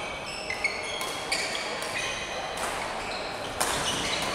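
Badminton rally: athletic shoes squeaking on the court floor in many short, high chirps, with a few sharp smacks of rackets striking the shuttlecock, the loudest a little after three and a half seconds in.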